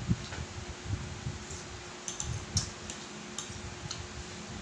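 A fork clinking and scraping on a plate several times in quick, uneven taps, over soft chewing and the steady hum of a fan.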